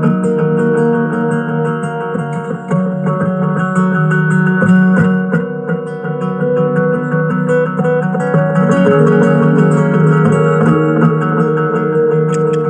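Acoustic guitar music built up on a loop station: several layers of plucked phrases overlap, with many held notes ringing on.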